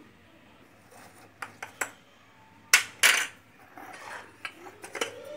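Metal spoon and tin clinking and clattering against a bowl, a tin lid and the tabletop. A few light clicks, then two loud knocks about 3 s in, then a run of smaller clinks near the end.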